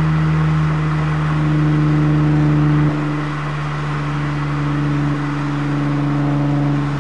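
Exhaust of a 6th-gen Nissan Maxima's 3.5-litre V6, fitted with Dynomax and Magnaflow parts, heard from right at the tailpipe while driving. It holds one steady engine note, a little quieter from about three seconds in, over a haze of road noise.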